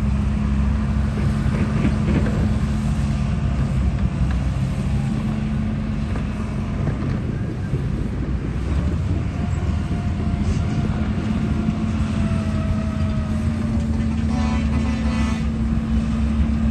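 A steady low engine-like drone with a held hum that drops out for a few seconds and returns. Partway through, a faint whine slowly falls in pitch, and a brief rapid rattle sounds near the end.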